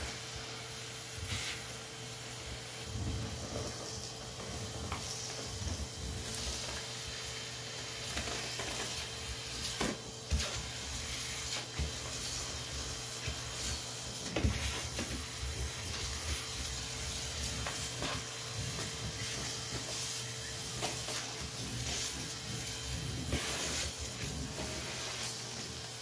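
Canister vacuum cleaner running steadily, its airflow hissing through the hose and wand as it sucks dirt off a bare floor, with a few sharp knocks along the way, the loudest about ten and fourteen seconds in.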